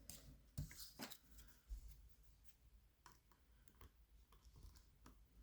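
Faint, scattered metallic clicks of lock-picking tools against a pin tumbler lock, a handful of separate ticks at irregular intervals.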